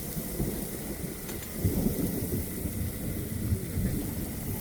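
Low rumble of thunder that swells about a second and a half in, over a steady hiss of rain.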